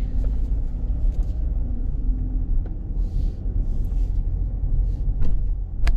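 Steady low rumble of a car driving slowly, heard from inside the cabin, with two sharp clicks near the end.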